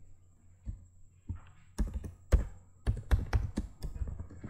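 Keys clicking on a computer keyboard as a command is typed: about ten irregular keystrokes, sparse at first and quicker from about two seconds in.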